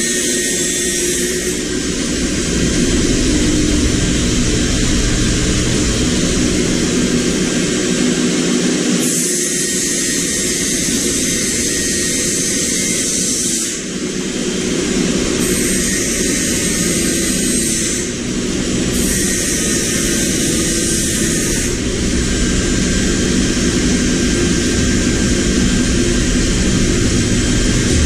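A motor running loudly and steadily, its higher hiss dropping away and coming back several times.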